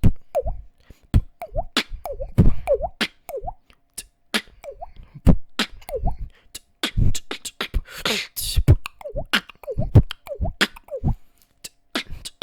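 Beatbox beat: mouth kick-drum thumps and tongue clicks, with many 'water drop' effects woven into the rhythm. The drops are short gliding notes made with a tongue click through an O-shaped mouth. A longer hissing sound comes about 8 seconds in.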